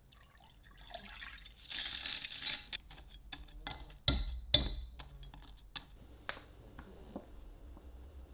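Milk and cornflakes going into a glass Pyrex measuring cup: a pouring hiss, then a metal fork clinking twice sharply against the glass as it pushes the flakes under the milk, followed by a few lighter taps.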